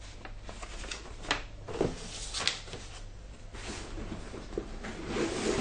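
Hands rummaging in a soft fabric carrying bag: scattered rustles and light knocks. A faint steady low hum runs underneath.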